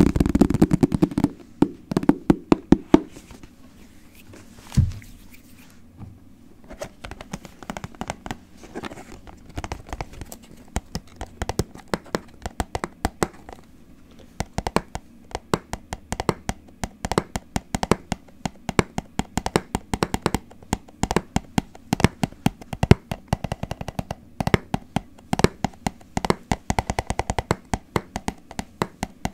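Rhythmic ASMR tapping on hard objects, several quick taps a second. It starts with heavier, deeper taps, has a single low thump about five seconds in, and continues as lighter, faster tapping.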